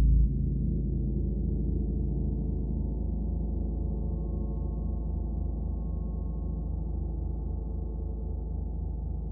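40-inch Wuhan Feng gong humming on after being struck, a deep sustained wash of overlapping low tones that wavers about four or five times a second and fades slowly.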